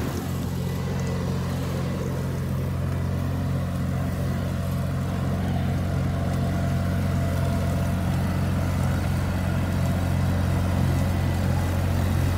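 Riding lawn mower engine running at a steady speed with an even hum.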